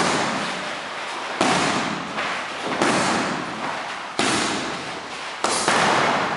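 Boxing gloves smacking focus mitts: about six sharp hits, one every second or so, each trailing off into a hiss.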